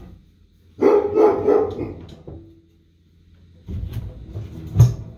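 A dog barks in a quick burst of several barks about a second in. Later come bumps and knocks from a wooden board being handled against a wall, with one sharp knock near the end as the loudest sound.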